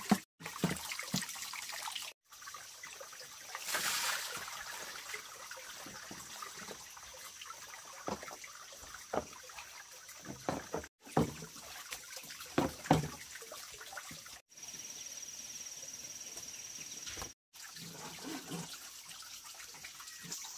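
Water trickling and splashing, with a few sharp knocks and clatters, the loudest a little past the middle. A steady high-pitched hum runs through some stretches, and the sound drops out abruptly for a moment several times.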